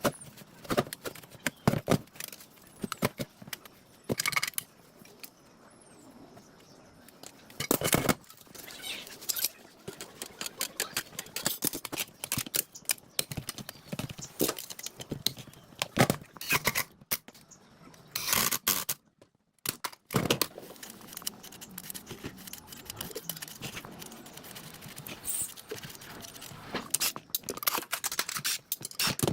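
Hand work on generator parts: irregular clicks, knocks and scrapes of tools and metal parts being handled, with a short break about two-thirds of the way through.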